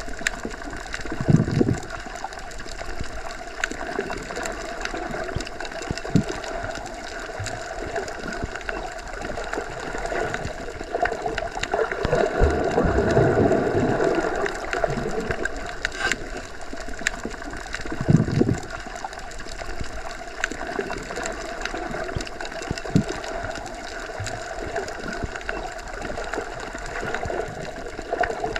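Underwater ambience heard with the ears or microphone submerged: a steady, muffled water rush with a few low surges and faint scattered clicks.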